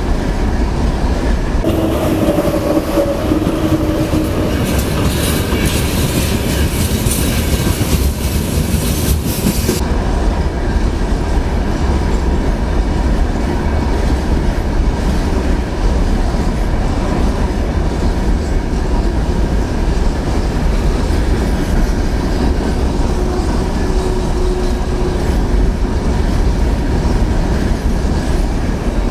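A train rolling past on the rails, its wheels clattering steadily over the rail joints. A higher hiss sits over it for the first several seconds.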